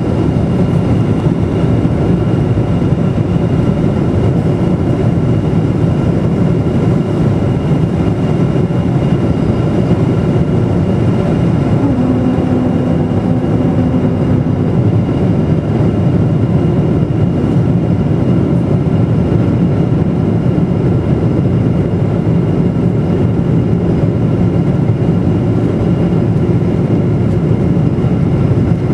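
Boeing 777-200 cabin noise heard beside the wing engine on approach: a loud, steady, deep roar of jet engines and rushing air. A brief low steady tone sounds about twelve seconds in for a few seconds.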